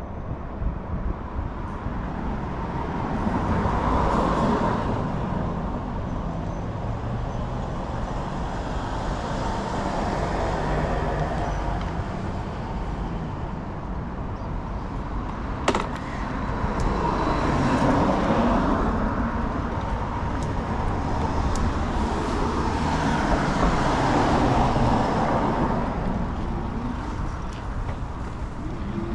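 Road traffic: a steady low rumble with cars swelling past about four times. There is a single sharp click about halfway through.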